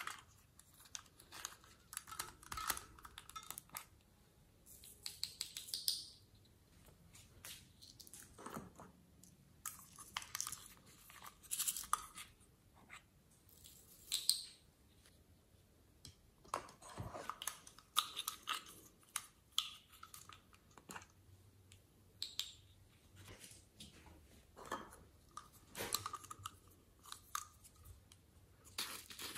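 Small plastic toys and containers being handled and foam beads and glitter sprinkled into a glass dish of slime: scattered light clicks, taps and short rustles with quiet gaps between them.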